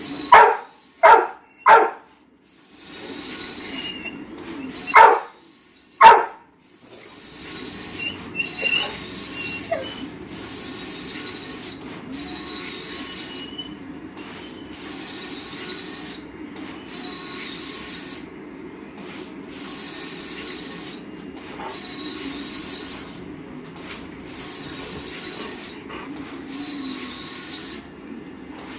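A golden retriever barks loudly five times in the first six seconds. A large-format plotter then prints steadily, its noise coming in repeated short passes with brief breaks between them.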